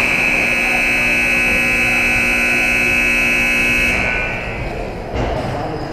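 Ice-rink scoreboard horn sounding one long, steady, loud blast that cuts off about four seconds in, followed by the rink's background noise.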